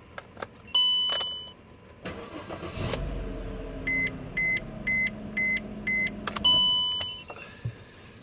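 Mercedes-Benz W204 C300's V6 engine started through a steering-lock (ESL) emulator: a dashboard chime, then the starter cranks briefly and the engine catches about three seconds in and keeps running. Five short beeps follow in quick succession, and another chime sounds near the end.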